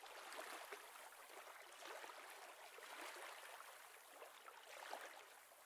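Faint, steady wash of moving water with small trickles and splashes.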